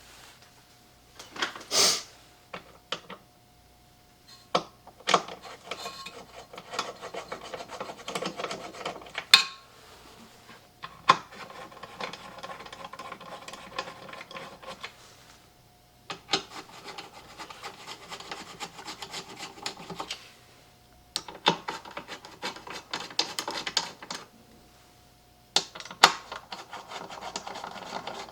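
Scrubbing and scraping by hand on a wooden speaker cabinet, as in cleaning it: stretches of rubbing strokes a few seconds long, separated by short pauses, with a few sharp knocks.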